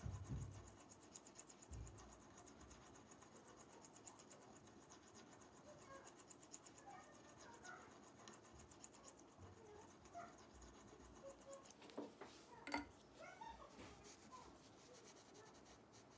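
Mostly near silence with faint, light scratching and a few soft clicks, and a short louder cluster of clicks about twelve to thirteen seconds in.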